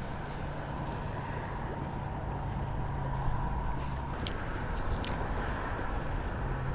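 Steady rushing outdoor noise of wind and choppy tidal water, with a low hum underneath and two brief high ticks about four and five seconds in.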